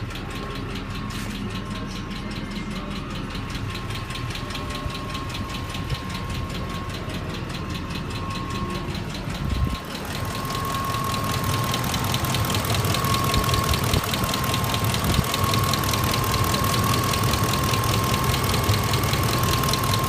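Ford F-150 Triton V8 running with a fast, even ticking/knocking that its owner cannot trace, over a steady high whine. It gets louder about halfway through.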